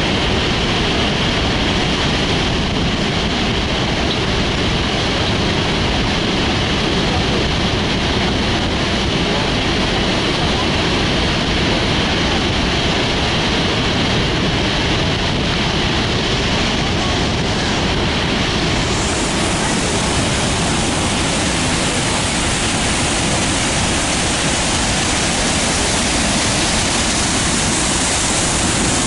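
Steady roar of Niagara Falls: a dense, even rush of falling and churning water. About two-thirds of the way through it turns brighter, with more hiss.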